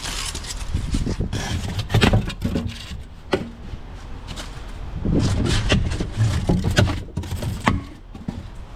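Irregular scraping and knocking as cut-up pieces of a dismantled steel door are handled, busiest about two seconds in and again from about five seconds to near the end.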